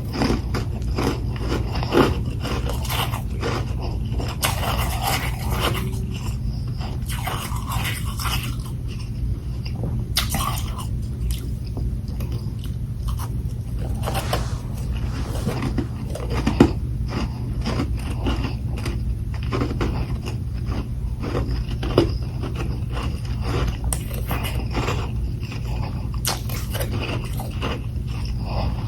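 Close-up biting and chewing of humidifier freezer frost balls: continual irregular crunching of powdery frozen ice, with a few sharper, louder bites, over a low steady hum.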